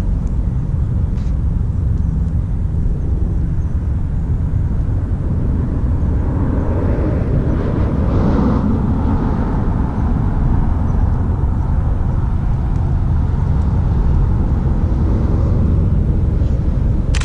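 Steady low outdoor rumble, with a passing vehicle that swells up about six seconds in, peaks around eight seconds and fades away.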